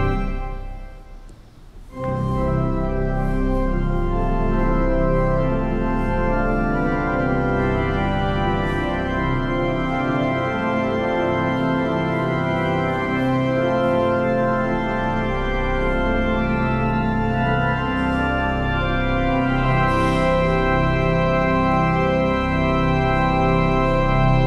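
Church organ playing full, sustained chords. A chord dies away early on, and the organ comes back in strongly about two seconds in.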